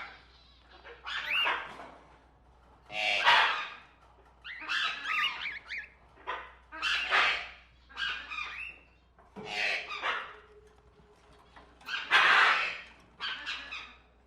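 Caged tropical birds in a pet shop calling with loud, harsh squawks, one burst every second or two.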